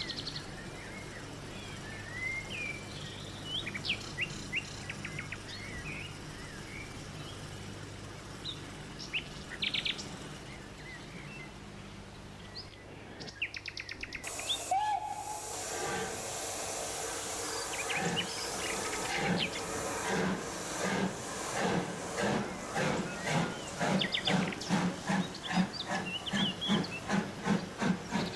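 Birds chirping over a steady low hum, then, about halfway in, a sudden burst of steam hiss with a brief whistle. A steam locomotive's exhaust follows, chuffing at about one and a half beats a second and gradually quickening as it gets under way.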